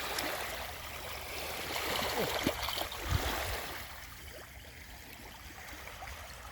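Water splashing and sloshing at the edge as a caught barbel is let go back into the dam, busiest in the first half and then settling.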